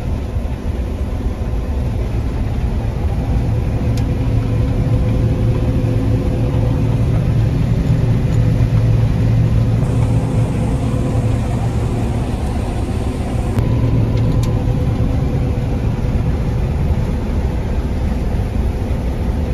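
Combine harvester running steadily while harvesting soybeans: a continuous low engine and machinery drone with a steady hum over it, a little louder in the middle.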